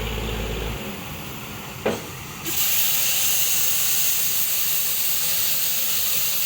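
A low hum stops near the start, then a single knock. About two and a half seconds in, a loud, steady hiss of gas escaping under pressure starts suddenly and keeps going.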